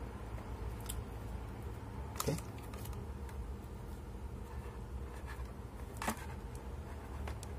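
Light handling noise of bare exhaust-fan motor lead wires being twisted together by hand. There are a few small clicks, the sharpest about six seconds in, over a steady low hum.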